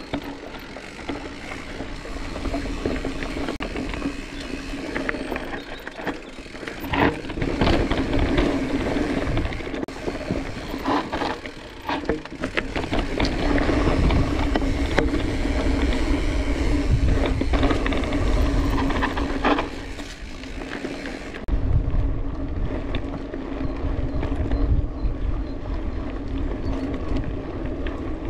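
Cross-country mountain bike ridden over a dirt trail: continuous tyre noise with the bike's chain and frame rattling and sharp knocks over bumps, under a steady low hum. About two-thirds of the way through the hissing noise eases off.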